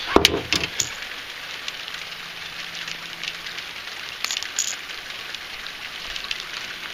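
Steady light rain pattering, with a few sharp clicks and knocks in the first second and again about four seconds in.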